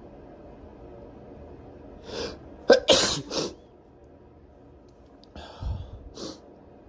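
A person sneezing hard once, about two and a half seconds in, with a short breath in just before it, followed by quieter breath sounds near the end.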